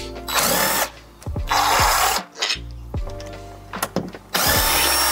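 DeWalt cordless drill with a Phillips bit backing out the screws of a door deadbolt, running in three short bursts.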